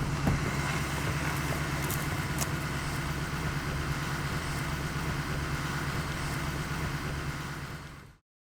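Steady hum of a motor vehicle's engine running, fading out near the end.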